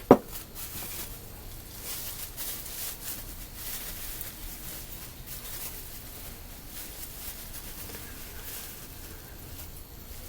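One sharp knock right at the start, then faint scattered clicks and rustles of small carburetor parts and packaging being handled on a workbench.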